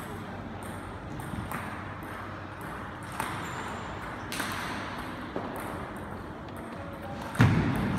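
Scattered sharp clicks of a table tennis ball bouncing and being tapped, echoing in a large sports hall, with one heavier knock near the end.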